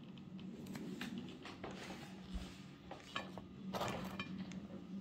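Scattered light clicks and taps from handling a ceramic serving plate and the pastries on it, over a low steady hum.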